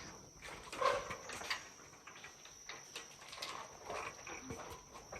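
Irregular footsteps and knocks on the suspension bridge of a canopy walkway as people cross it, with a louder knock about a second in.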